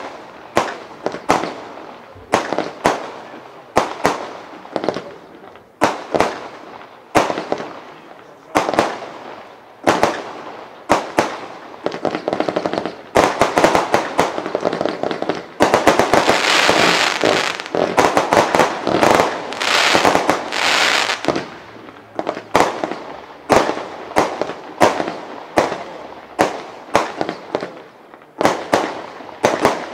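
Lesli 'Vliegende Hollander' fireworks cake firing shot after shot, each a sharp report, roughly one to two a second. About halfway through, a dense crackling barrage runs for around five seconds before single shots resume.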